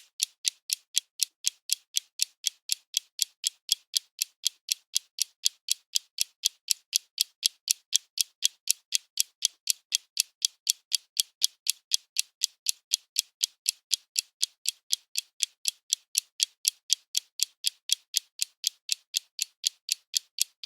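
Clock ticking steadily, with crisp, sharp ticks at about four a second.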